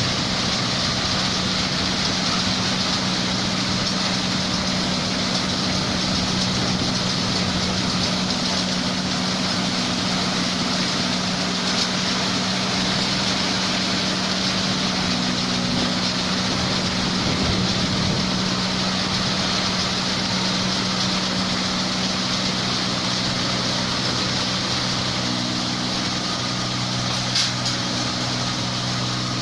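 New Holland 8070 combine harvester running steadily, its engine and machinery giving an even hum at a constant pitch under a broad hiss. A brief click comes near the end.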